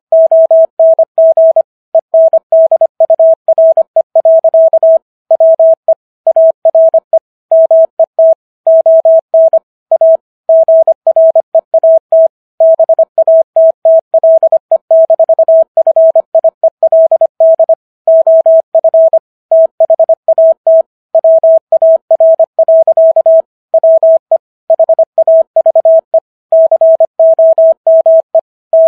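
Morse code tone: a single steady pitch keyed on and off in rapid dots and dashes at 25 words per minute, with short pauses between words, spelling out the text of the Gettysburg Address.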